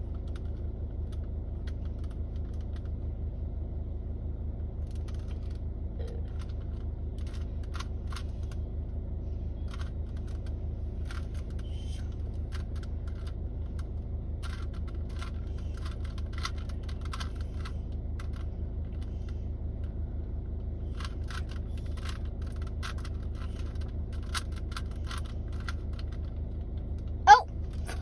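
Rubik's cube faces being turned by hand: scattered light plastic clicks, some in quick runs, over a steady low hum. A short loud sound with a gliding pitch comes near the end.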